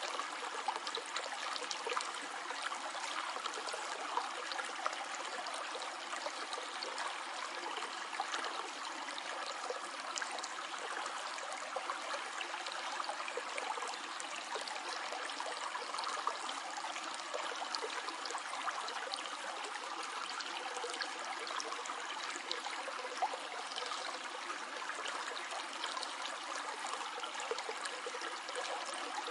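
A small stream flowing steadily over stones, trickling and gurgling, with many tiny splashes throughout.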